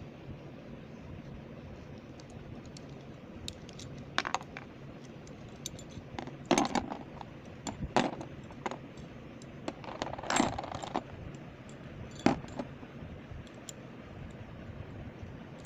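Metal and plastic parts of a Cosmic Pegasus Beyblade clicking and clinking as they are handled and fitted together. The clicks come in scattered bunches, the loudest about six, eight, ten and twelve seconds in, over a steady low background hum.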